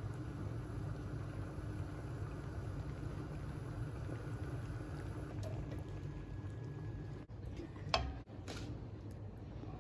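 Steady low rumble with a faint hum from a pot of soup simmering on a gas stove, broken by a short clink of a ladle against the pot near the end.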